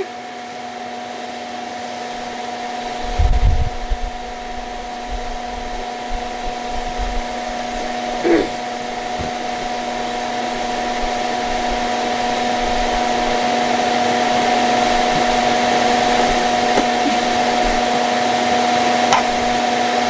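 Pelonis disc furnace space heater running: its fan blows a steady airy rush over a constant motor hum, slowly growing louder. A few low bumps about three seconds in.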